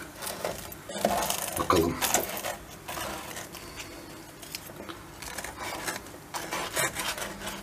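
Knife sawing through the crisp pan-fried yufka layers of a gözleme, giving an irregular crackling crunch, with the knife and fork scraping against a wooden board. The crackle is the sign of well-browned pastry whose layers fried apart and stayed crisp.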